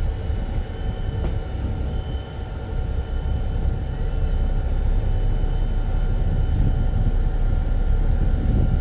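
Passenger ferry's diesel engines running with a steady low rumble and a few faint steady hum tones, heard from the open rear deck.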